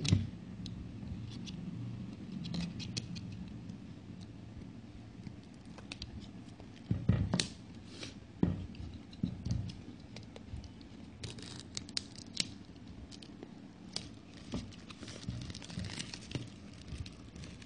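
Hands opening a shipping package: scattered scratching, rustling and small clicks as the packaging is handled and pulled open, with a few louder knocks about seven and eight and a half seconds in.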